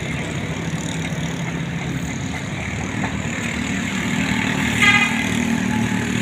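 Diesel engines of road-paving machinery running steadily, growing a little louder after about four seconds, with one short beep about five seconds in.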